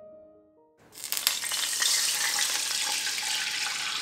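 Milk poured into a hot kadai still coated with ghee from frying nuts, sizzling sharply as it hits the pan, starting suddenly about a second in and slowly easing. A few soft background-music notes come just before it.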